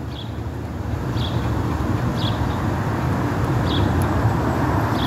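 Steady low rumble of street traffic, growing slightly louder, with a faint light click about once a second.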